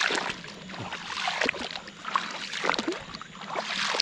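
Wading footsteps through shallow water and mud in a flooded rice paddy: irregular sloshing and splashing with each step.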